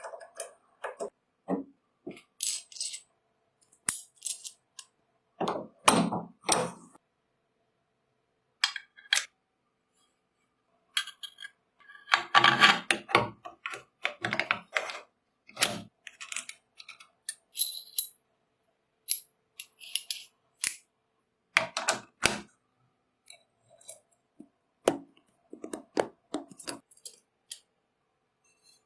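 Small metal parts of an old hand drill clinking and knocking as they are handled, in scattered short clicks and clatters with silent gaps, busiest about twelve seconds in.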